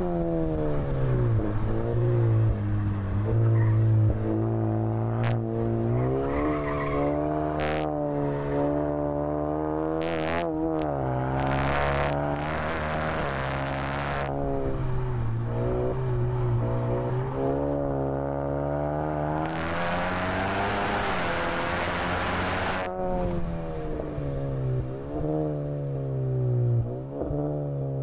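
Tuned Honda Accord 2.0T's turbocharged 2.0-litre four-cylinder, with an aftermarket exhaust, pulling hard at speed on a track lap: its pitch rises through each gear and drops back on shifts and braking, over and over. A loud rushing hiss joins in for a few seconds past the middle.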